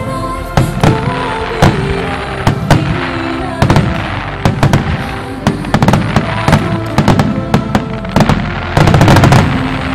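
Starmine fireworks from Takata Hanabi Kogyo bursting in quick succession, sharp bangs coming irregularly a few per second over music, with a dense flurry of bangs about nine seconds in.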